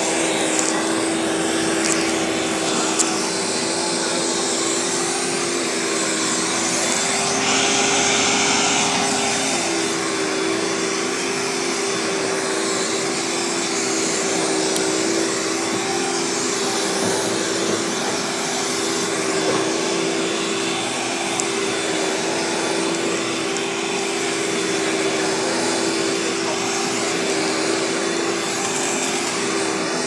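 Carpet Pro commercial upright vacuum cleaner running steadily as it is pushed back and forth over carpet, a continuous motor hum with airflow hiss. About eight seconds in the motor note shifts briefly and the air rush grows louder for a moment.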